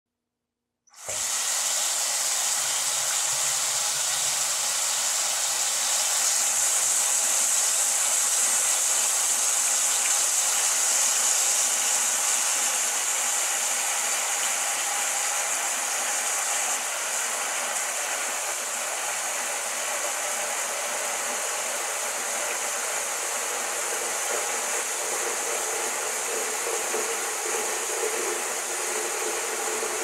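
Water faucet running in a steady stream, a constant even hiss that starts suddenly about a second in.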